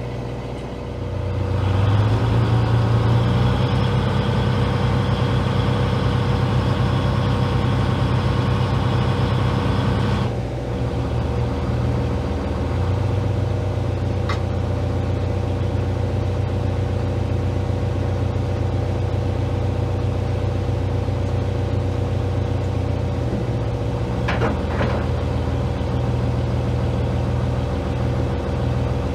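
Fishing boat's engine running steadily with a low hum. It picks up about a second and a half in and eases off around ten seconds in. Two brief clicks are heard in the middle and near the end.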